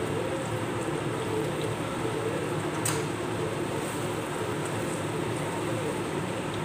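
Sweet potato slices frying in oil in a pan: a steady sizzle, with one sharp clink of the spatula against the pan about three seconds in.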